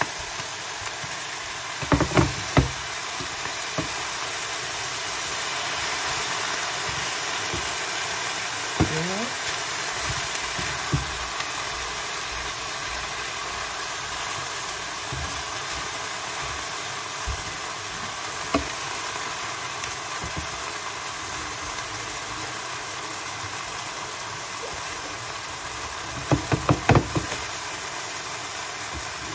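Pancit canton noodles sizzling steadily in a hot pan after a splash of water, stir-fried and tossed with a utensil. A few short clusters of clatter from the utensil against the pan come about two seconds in and again near the end.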